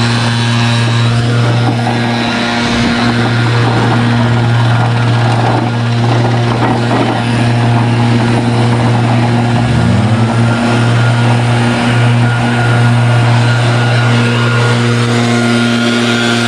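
Commercial lawn mower's engine running steadily at working speed, close up, with a brief rising note about ten seconds in.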